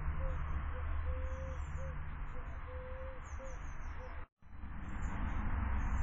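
A dove cooing over a steady background hiss: one long, low coo followed by a short one, repeated about every one and a half seconds. The sound drops out abruptly a little past four seconds in, and the hiss comes back without the cooing.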